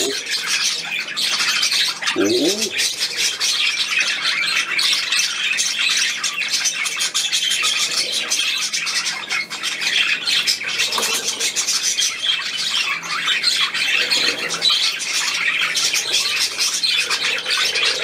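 A flock of budgerigars chattering without a break, a dense mix of high warbles, chirps and squawks.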